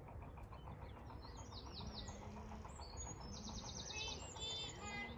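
Small songbirds chirping and singing rapid high trills, starting about one and a half seconds in, over a steady low rumble.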